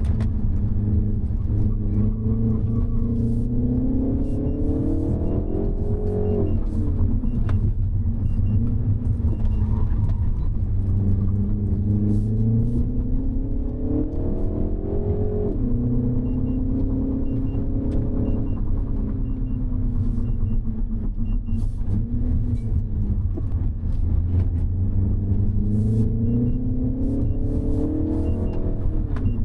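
2025 Mini Cooper S's turbocharged four-cylinder engine pulling hard through the revs, its pitch climbing over several seconds and then dropping sharply, three times, over a constant low road rumble.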